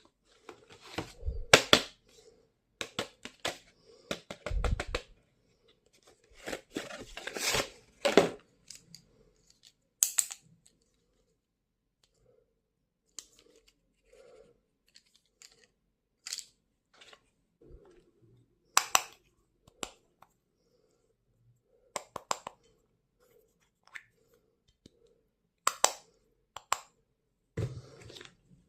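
Stationery packaging being opened and handled by hand: rustling and tearing through the first eight seconds or so, then scattered sharp clicks and taps as items are handled.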